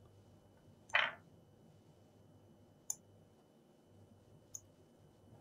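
Small hand tools working wire: a short scrape about a second in, then two faint sharp ticks, as tweezers handle the cut ends of a charger cable.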